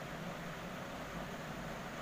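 Steady background hiss with a faint low hum and no distinct event: room tone.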